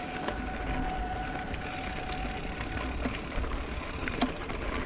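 Mountain bike riding along a dirt trail: a low steady rumble of tyre and ride noise with scattered clicks, and a thin steady whine that fades out about two and a half seconds in.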